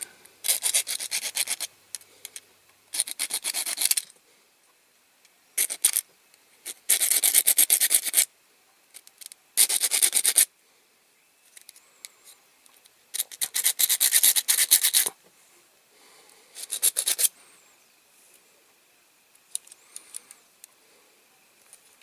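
Small metal file rasping in quick bouts of strokes against the peened, mushroomed end of a diecast toy's axle, grinding it down to free the wheel. The strokes come in about seven short runs separated by pauses, fainter near the end.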